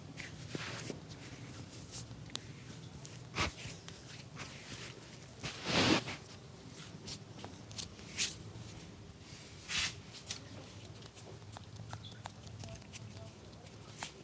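Hands massaging a person: scattered light taps and clicks on skin, with a few short rubbing swishes, the loudest about six seconds in.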